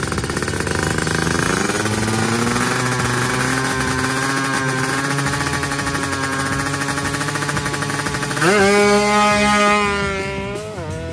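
Two-stroke Kawasaki Ninja 150 drag bike engine revved up and held at high revs on the start line. About eight seconds in it launches hard: the revs jump and climb, drop briefly at an upshift, then climb again as the bike pulls away.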